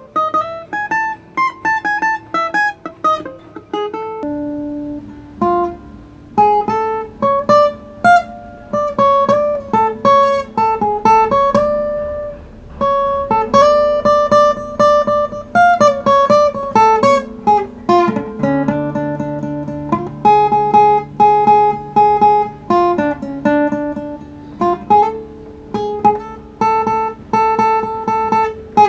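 Solo plucked string instrument improvising a melody in the Ethiopian anchihoye pentatonic scale: quick picked notes over lower notes left ringing, with a deeper bass note joining about two-thirds of the way through.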